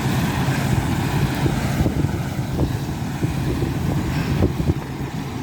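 Combine harvester engine running with a steady low drone, under wind buffeting the microphone.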